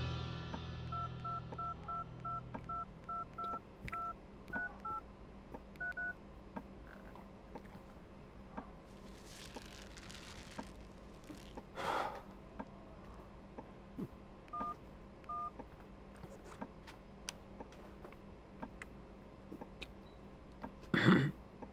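Mobile phone keypad tones as a number is dialed: about a dozen short two-note beeps in quick succession over the first few seconds, then two more about ten seconds later. A brief, louder noise comes just before the end.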